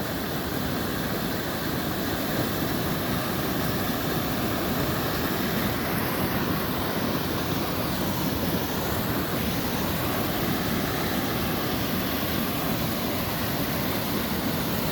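Steady rushing of river water pouring over a low dam: a constant, even noise with no breaks.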